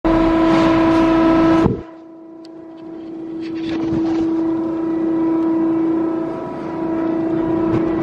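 IMABE MP100 non-ferrous hydraulic baler's hydraulic power unit running with a steady whining hum. Under two seconds in it drops suddenly from a loud, full sound to a quieter one, then builds back up over a couple of seconds.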